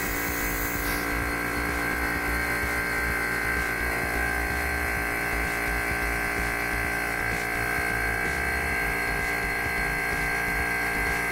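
Vacuum pump motor running steadily, a constant mechanical hum with a high whine, as it pulls air out of the vacuum chamber. A brief high hiss comes in the first second.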